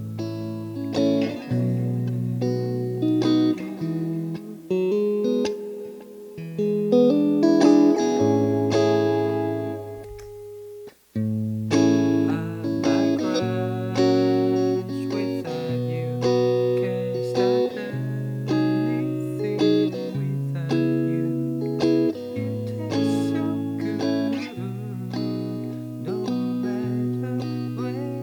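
Guitar playing chords through a Wampler Ethereal delay and reverb pedal, the notes carrying on and overlapping with the delay repeats. The playing dips briefly about ten seconds in, then goes on with a chord change roughly every two seconds.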